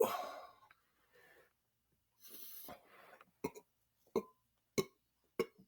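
A man's loud burp trailing off in the first half second, then a soft breath, then four short, sharp mouth noises about two-thirds of a second apart.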